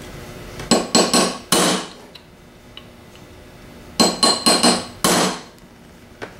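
Hammer striking a small sharp chisel into the edge of a cast aluminium alternator housing's bearing bore, in two quick runs of four or five ringing metallic blows about three seconds apart. This is staking: raising small walls of housing metal over the edge of the bearing's outer race to hold the bearing in.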